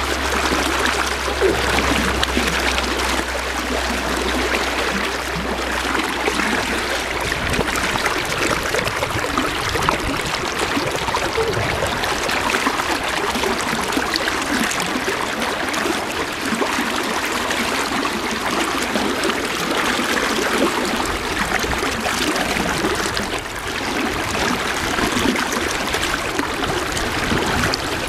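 Fast river current rushing steadily, the Farmington River running high with March water. A low steady hum sits under it for the first several seconds.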